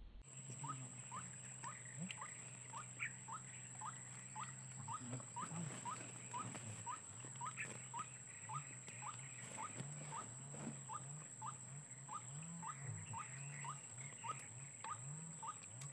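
White-breasted waterhen calling: a short rising note repeated steadily about twice a second. A low wavering hum and a thin steady high whine sit underneath.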